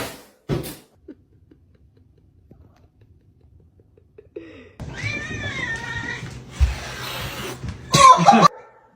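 Domestic cat meowing: a long, wavering meow about five seconds in, then a louder, shorter cry near the end.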